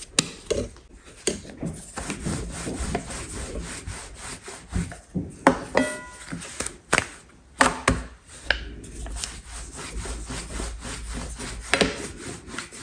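Dough being pressed out by hand and rolled with a rolling pin on a countertop: steady rubbing and rolling, broken by scattered sharp knocks of hands and pin on the counter.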